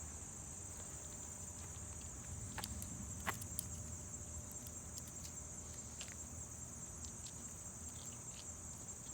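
Steady high-pitched chorus of insects trilling, with a few sharp clicks or light knocks, the loudest about three seconds in.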